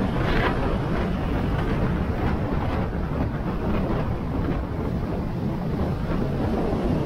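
Steady wind rushing over the microphone of a moving motorcycle, with the bike's road and running noise underneath.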